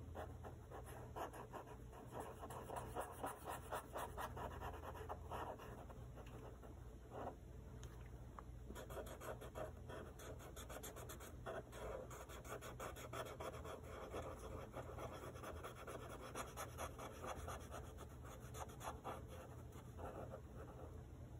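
Sharpie marker scratching on paper in quick, repeated back-and-forth strokes as it fills in a small area with solid black; faint.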